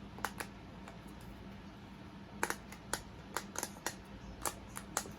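Short sharp clicks of a pineapple-shaped pop-it fidget toy's silicone bubbles being pressed: two pops near the start, then about a dozen uneven pops in the second half.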